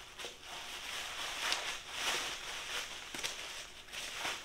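Plastic bubble wrap crinkling and rustling as it is handled and unwrapped, a steady run of small crackles with a few louder swells.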